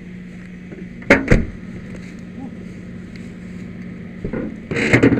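Two sharp knocks about a quarter second apart, then a louder spell of rustling and knocking near the end, as firefighters work in a wrecked car's engine bay around the battery, over a steady low hum.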